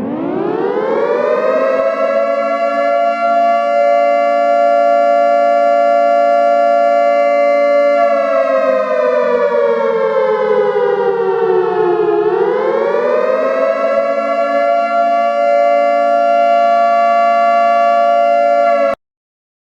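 Civil defense siren sounding several tones at once. It winds up in pitch over the first couple of seconds and holds steady, slowly sags in pitch from about eight seconds in, winds back up, and cuts off suddenly near the end.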